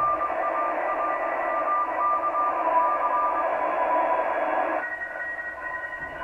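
ICOM IC-R8500 communications receiver in USB mode on the 30-metre amateur band, playing Morse code: a beeping tone keyed on and off over a hiss of band noise, with fainter tones of other stations at higher pitches. The main keying stops about three and a half seconds in, and the noise falls away about a second later.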